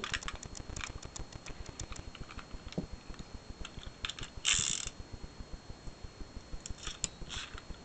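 A run of light, quick clicks and taps, with a brief scraping rustle about four and a half seconds in.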